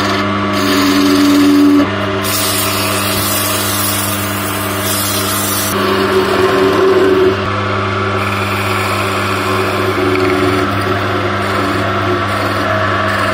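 Wood lathe running with a steady motor hum while a turning tool cuts a spinning linden (basswood) blank. A hissing cutting noise is heard from about two to six seconds in.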